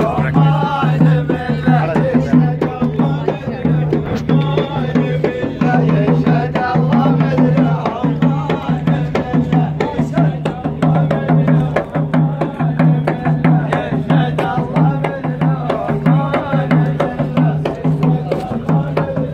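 Traditional Gulf folk music of the ayyala kind: drums beating a steady, fast rhythm under men chanting together.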